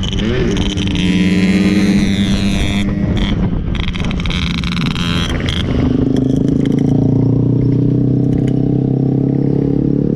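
Yamaha RX-King 135 cc two-stroke motorcycle engine running under way. Its pitch rises in the first second and there is a hissy edge in the first half. From about six seconds in it settles into a steadier, lower note.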